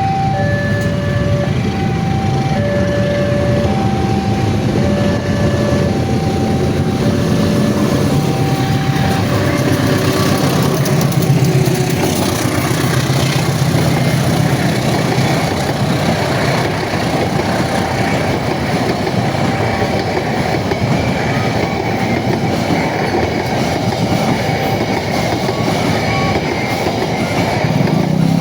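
Railway level-crossing warning alarm sounding two alternating tones, a lower and a higher, each held for under a second. About ten seconds in, a passing train's rumble and wheel noise take over, with the alarm still faintly heard beneath it.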